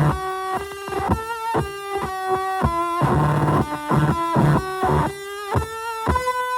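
Electric guitar played through a fuzz pedal built after the Devi Ever Hyperion, heavily distorted: a run of short single notes, with a thicker chord-like passage a few seconds in.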